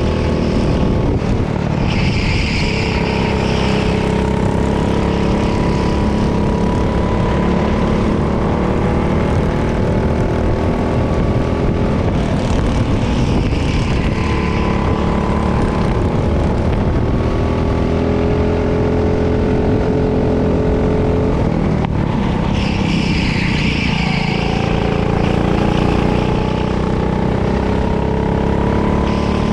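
Go-kart engine running hard, its pitch climbing slowly for many seconds, dropping sharply about three quarters of the way through as it comes off the throttle, then climbing again. A higher hiss swells and fades three times.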